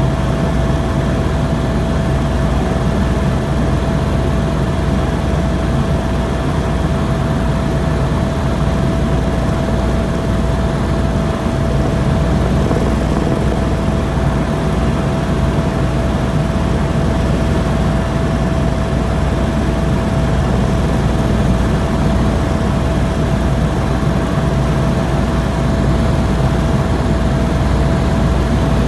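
Tour helicopter in level flight: a steady, loud rotor and engine rumble with a thin, high whine held on one note throughout.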